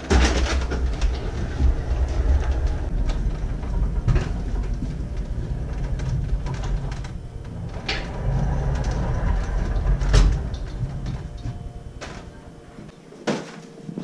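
Hand pallet jack being moved across the store floor: a continuous low rumble with rattles and knocks. It quiets about twelve seconds in, and one sharp knock comes near the end.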